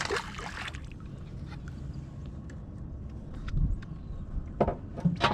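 Noises aboard a small fishing boat: a short splashy burst at the start, then scattered clicks and knocks over a low steady rumble of water and wind, with two sharper knocks near the end.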